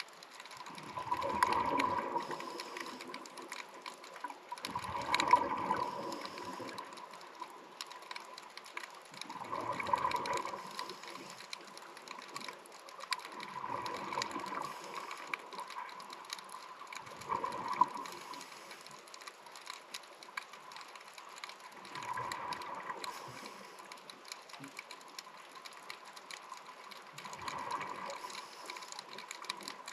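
Scuba regulator exhaust bubbles heard underwater: seven gurgling bursts, one every four to five seconds, as the diver breathes out, with faint crackling clicks between them.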